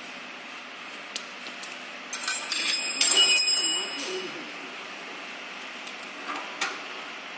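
Metal parts and tools clinking and rattling with a metallic ring for about two seconds, followed by a few light clicks.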